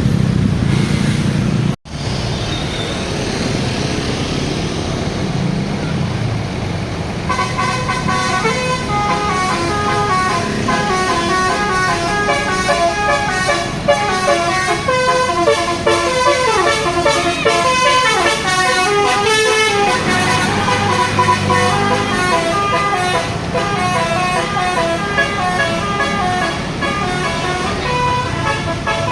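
A tour bus's 'telolet basuri' musical air-horn set playing a rapid tune of stepped horn notes, starting about seven seconds in over the bus's running engine. The tune breaks briefly partway through, then carries on.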